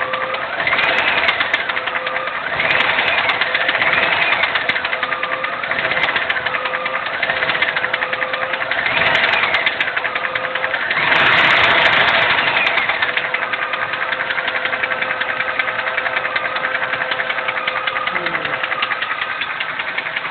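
GM 5.7 Vortec V8 running with a fast, steady ticking, its speed rising and falling in repeated revs, the biggest about eleven seconds in, then settling to an even idle. The owner suspects the ticking comes from a bad lifter.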